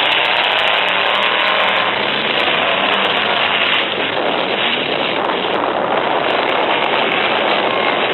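Several full-size trucks' engines running and revving together in a loud, continuous din.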